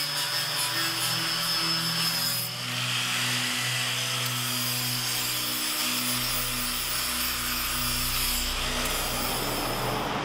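Angle grinder grinding the edge of a steel plate. A steady high whine changes to a rougher hiss about two and a half seconds in.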